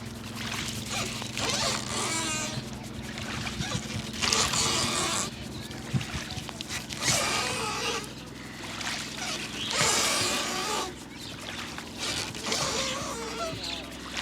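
Head massage: hands rubbing the scalp and hair vigorously, in rasping strokes about a second long every couple of seconds, with a few sharp slaps. A steady low hum runs underneath.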